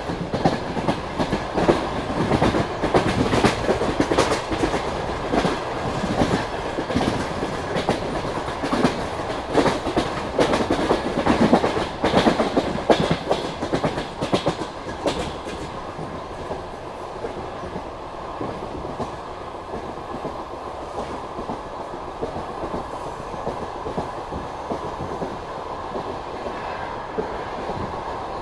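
Passenger train running at speed, its wheels clattering over rail joints with a steady rumble. The clicks come thick and loud through the first half, then give way to a smoother, quieter rumble.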